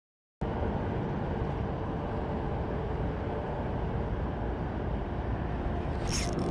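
Wind buffeting the microphone on open water: a steady low rumble, after a moment of total silence at the very start. Some brighter crackling near the end.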